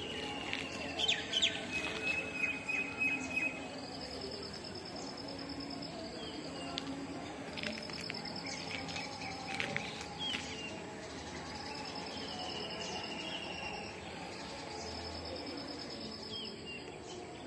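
Insects trilling in repeated high, pulsing bursts of a couple of seconds each, with short gaps between them. There are louder short chirps in the first few seconds.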